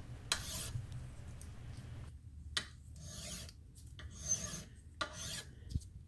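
10-inch fine-cut mill file drawn across a small brass piece clamped in a vise, cleaning up the saw-cut edge to a smooth finish. A handful of separate soft rasping strokes, roughly one a second.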